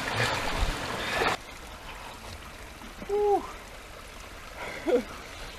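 Shallow creek water splashing and running as a person crawls through it on hands and knees, cutting off suddenly about a second and a half in. After that a much quieter background, with two short grunt-like voice sounds.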